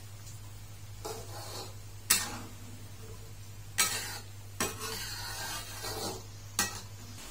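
A metal ladle stirring a thick coconut-milk sardine curry in a metal wok, scraping through the gravy with four sharp clinks against the pan. A steady low hum runs underneath.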